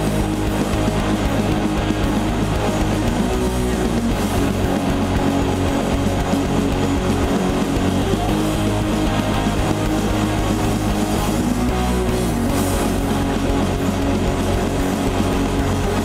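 Live metal band playing: distorted electric guitars, bass guitar and drums in a dense, steady wall of sound.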